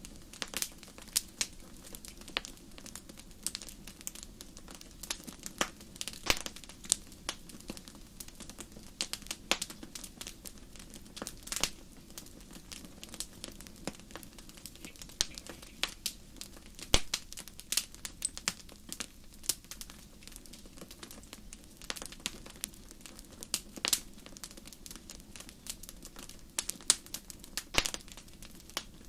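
Campfire burning: wood crackling and popping in irregular sharp snaps, some louder than others, over a low steady rush of flame.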